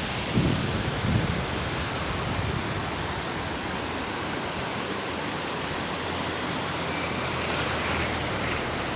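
Fast mountain river running, a steady loud rush of water. A few low thumps come through in the first second or so.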